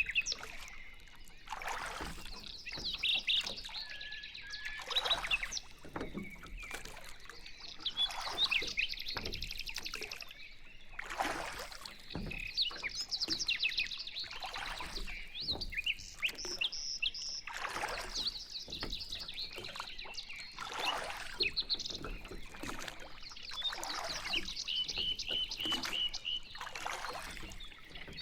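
Small birds chirping and trilling, with a rapid run of notes near the end, over repeated swishes of water churned by a pedal boat's paddles.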